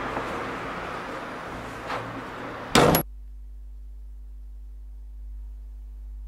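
A house's front door slamming shut with a short, loud clatter about three seconds in, after steady outdoor background noise and a faint click. The outdoor noise cuts off at the slam, leaving only a low steady hum.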